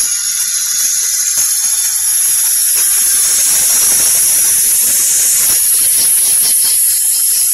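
A loud, steady hiss that starts abruptly and holds level, strongest in the high range.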